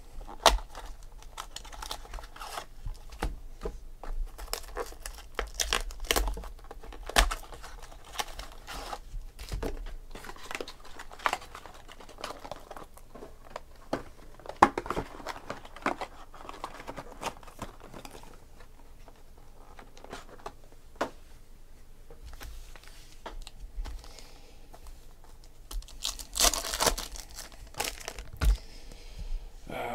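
Plastic wrappers of Panini Select football card packs crinkling and tearing as packs are opened, with sharp crackles scattered throughout as the packs and cards are handled. A louder, longer crinkling rustle comes near the end.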